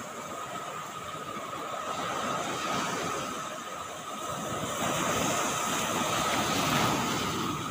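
Waves breaking and washing up a sandy beach in a steady rush of surf, swelling louder twice as bigger waves come in; the surf is heavy.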